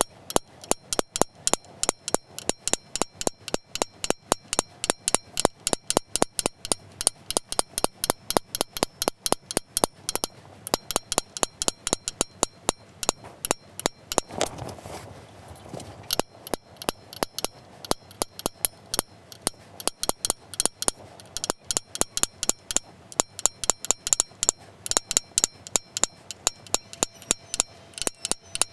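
Small hammer striking steel stamping punches into the wooden bowl: rapid sharp taps, about three or four a second, quickened because the work is sped up. There is a short break in the tapping about halfway through.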